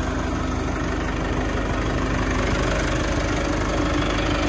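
Mahindra Arjun Ultra-1 605 DI tractor's four-cylinder diesel engine running at a steady speed with an even beat.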